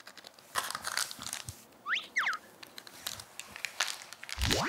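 Light crinkling and rustling of a churu cat-treat packet being handled, in short scattered clicks. A few quick high squeaky chirps sound about two seconds in, and a fast rising whistle sound effect comes near the end.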